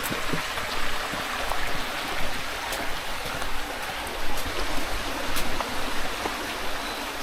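Running water of a stream, a steady rushing hiss with small splashes scattered through it.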